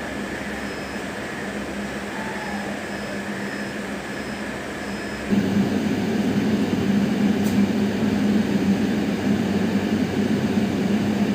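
Steady rumble and low hum inside a train locomotive's cab. About five seconds in it cuts abruptly to a louder, steady train noise from a passenger train at a platform.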